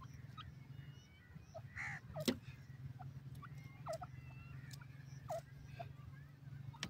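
Female grey francolin giving short, soft downward-sliding notes, four or five a second or more apart, over a steady low hum, with one sharp click a little over two seconds in.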